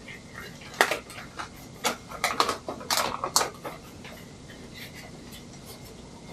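Plastic light-cover film and its backing being handled, giving a run of sharp crinkles and clicks, thickest between about one and four seconds in.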